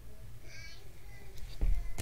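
Low steady hum with a short high warbling chirp about half a second in and a thump near the end.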